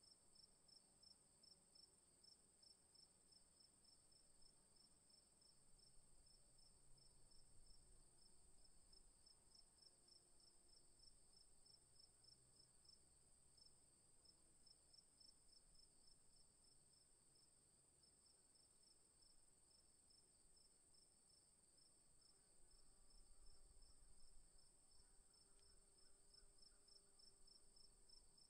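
Faint, steady insect chirping with a fast, even pulse, over near silence.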